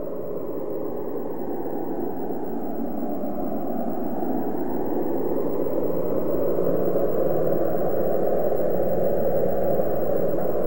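A steady, low rushing noise that slowly grows louder, with a faint low hum under it.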